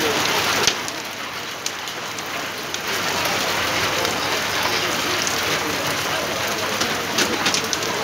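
Heavy rain pouring down, with the patter of individual drops. It eases a little about a second in and builds back up by about three seconds.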